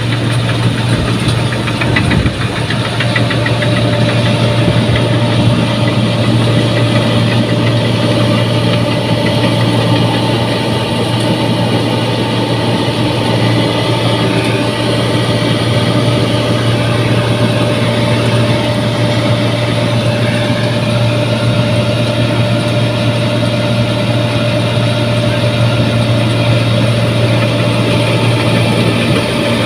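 New Holland 1545 combine harvester running steadily while it cuts rice. Its diesel engine and machinery make a constant low drone.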